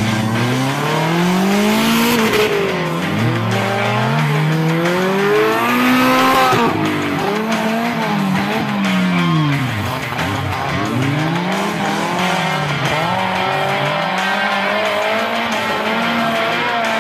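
Off-road buggy engine revving hard, its pitch rising and falling again and again as it drives through mud.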